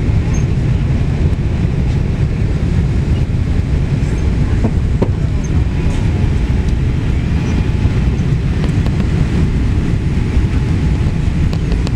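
Boeing 787-8 cabin noise during the climb after takeoff: the engines and rushing air make a steady, deep rumble, heard from inside the cabin.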